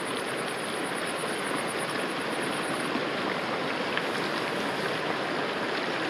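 Steady rushing of a nearby stream, with a high, rapidly pulsing chirr over it that stops about halfway through.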